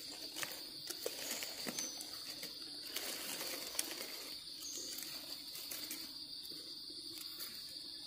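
A steady, high-pitched insect drone from the forest, with scattered faint clicks and rustles.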